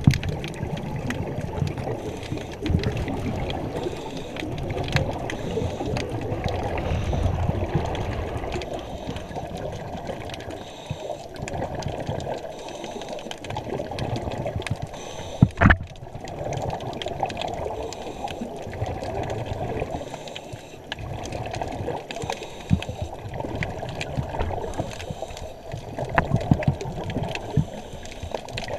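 Muffled underwater rushing and sloshing of water around a submerged action camera's waterproof housing, with scattered light knocks and one sharp knock about halfway through.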